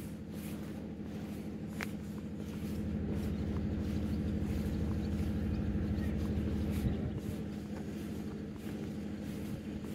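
A motor engine running with a steady low hum that grows louder through the middle and eases off again near the end.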